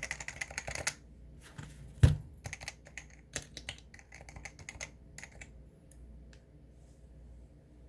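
Typing on a Leopold FC660-series keyboard: a quick run of keystrokes, then one heavy thump about two seconds in. Slower, scattered keystrokes follow and thin out to a few faint clicks past the middle.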